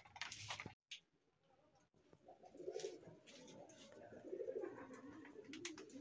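Pigeons cooing, a low wavering coo that repeats from about two seconds in. Before that there is a short crackle of clicks that cuts off suddenly.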